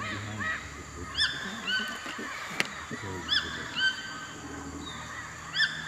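A bird calling repeatedly, several times. Each call is a short arched note that runs straight into a held, steady tone. There is a single sharp click about two and a half seconds in.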